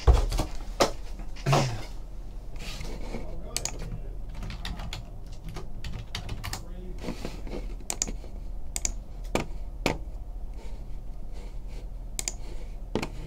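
Typing on a computer keyboard: irregular short key clicks, over a low steady hum.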